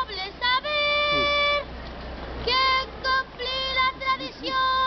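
A boy singing a children's proclamation (pregó) in a high voice, in short phrases with long held notes and a pause of about a second near the middle.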